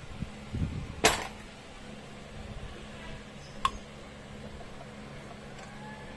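Two sharp metallic clinks, a loud one about a second in and a lighter one a few seconds later, as metal parts of a water temperature sender and its hose adapter are knocked while being fitted, over a steady low hum.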